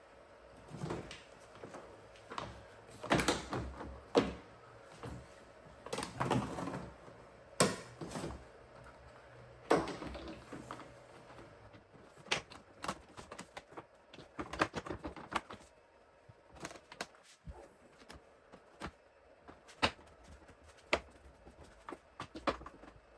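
Plastic tailgate trim pieces being handled and worked out of place: irregular clicks, knocks and scraping of hard plastic. The louder knocks come in the first half; lighter, quicker ticks follow.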